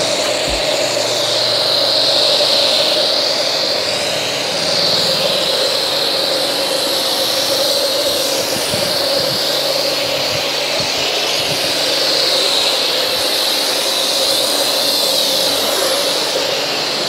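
Aken DW2000 1650 W electric pressure washer running with a foam cannon fitted, spraying foam onto a car: a steady, loud hiss of spray over the motor's even whine.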